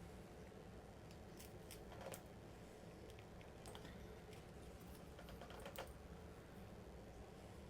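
Faint, scattered clicks and scrapes of a carving knife taking small cuts in a block of poplar, over a low steady hum.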